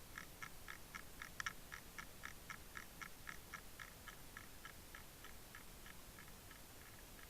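Faint, even ticking underwater, about four to five clicks a second, picked up by an underwater camera during a lure retrieve; it grows fainter over the last couple of seconds.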